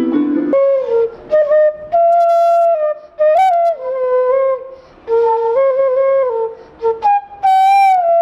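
A side-blown flute made of white PVC pipe playing a slow melody of held notes with short breaks between phrases. During the first half second, chords on an electronic keyboard are still sounding.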